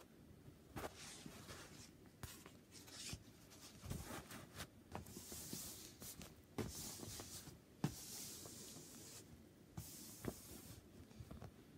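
Faint rustling and handling of a diamond painting kit's canvas and packaging, with scattered light knocks and taps and a few longer rustles.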